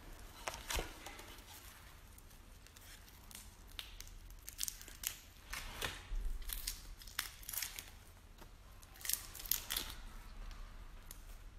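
Shell of a large red shrimp crackling and snapping as it is peeled apart by hand: irregular sharp clicks, bunched in short runs.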